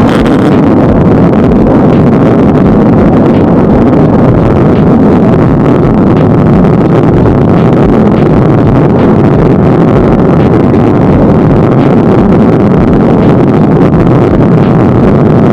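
Loud, steady rumble of longboard wheels rolling over street pavement, picked up by a camera mounted on the deck.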